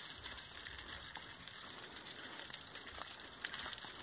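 Faint footsteps on a dirt track, irregular soft ticks and scuffs over a steady high-pitched hiss of outdoor background noise.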